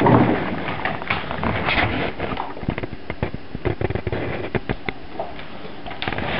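Dogs' claws clicking and scuffing on a hardwood floor as two large dogs move about close together, a run of irregular taps.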